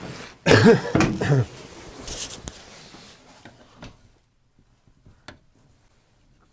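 Hands working the old rubber gasket off an Aprilaire 800 steam humidifier: a loud burst of rubbing and handling noise about half a second in, a short scrape at about two seconds, then a single sharp click a little past five seconds.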